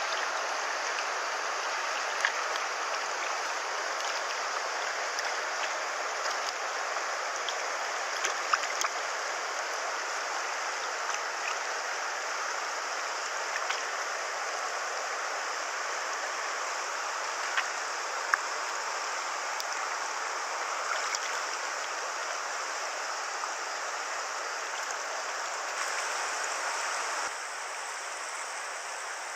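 River water flowing steadily, a continuous rush with a few sharp ticks and small splashes. The rush drops slightly in level and changes in tone near the end.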